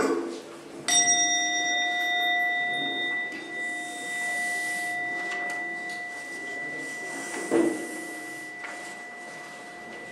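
A single struck metal bell rings out about a second in, one clear tone with higher overtones that sustains and slowly fades. A soft thump comes about seven and a half seconds in.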